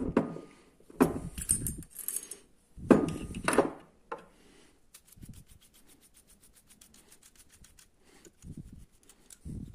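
Cast brass mixing-valve body and its brass threaded parts handled on a stone countertop: a couple of loud knocks and clinks as pieces are set down, then a run of fast, even, faint ticks midway.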